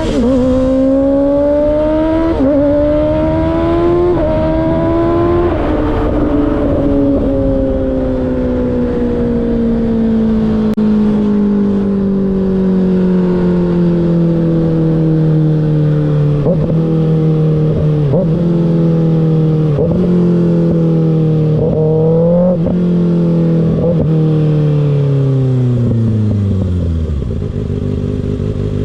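2024 Kawasaki ZX-6R's 636 cc inline-four through an M4 slip-on exhaust, revving up through three upshifts in the first six seconds. Then the revs fall slowly under engine braking, with a series of short blips on the downshifts, and settle to idle near the end.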